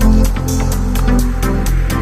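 Electronic dance music with a steady, driving beat over a sustained bass line.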